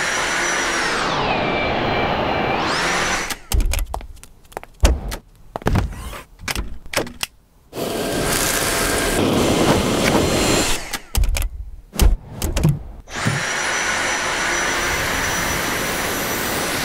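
Dyson V7 Animal cordless vacuum running in three stretches, a steady rush of suction with a high motor whine; in the first stretch the whine drops in pitch and comes back up, and in the last it rises as the motor starts. In between come bursts of sharp clicks and knocks.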